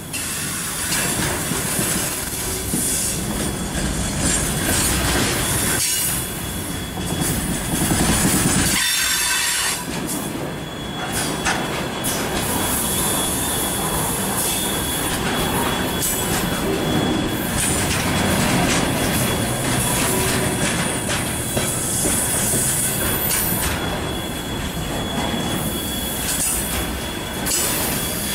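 Container flatcars of a freight train rolling past close by: a steady loud rumble and clatter of steel wheels on the rails, with a thin high squeal from the wheels running through it.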